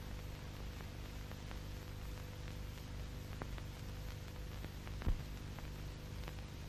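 Background noise of an old optical film soundtrack: steady hiss and low hum with scattered faint crackles, and one louder click about five seconds in.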